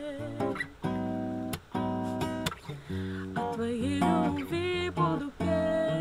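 Acoustic guitar strumming chords in a steady rhythm, with a woman's voice singing a brief wordless line about halfway through.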